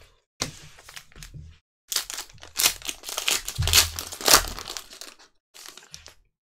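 Foil trading-card pack wrapper being torn open and crinkled in gloved hands: a run of crinkling and tearing noises, loudest around the middle, with a few small rustles near the end.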